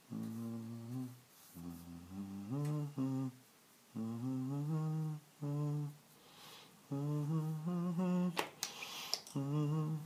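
A man humming a tune in short, low-pitched phrases with brief pauses between them. A single sharp click a little over eight seconds in, followed by a brief hiss.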